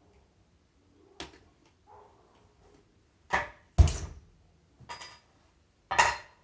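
A series of sharp knocks and clatters, about five in all, the loudest a heavy thud about four seconds in: hard parts and tools being handled during wheelchair caster bearing work.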